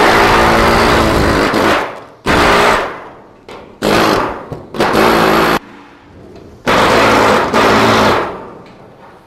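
Hand-held pneumatic drill on an air hose run in five bursts of one to two seconds against a sheet-metal duct, each burst a steady whine that winds down when the trigger is released.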